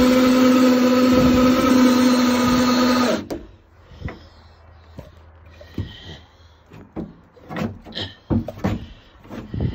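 DeWalt cordless drill driving a Warn winch, running with a steady whine under the load of winching an ice house into a pickup bed, then stopping about three seconds in. After that, scattered knocks and clicks.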